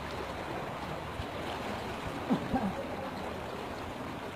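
Steady rushing noise of water, with two short voice-like calls about two seconds in.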